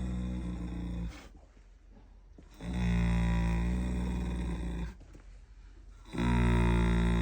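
Standardbred mare snoring loudly in her sleep: long, low-pitched snores of about two seconds each at a steady pitch, with short quiet gaps between. One snore ends about a second in, a second runs through the middle, and a third starts near the end.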